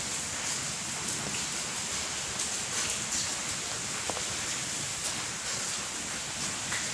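Steady rain falling, an even hiss with faint scattered drips.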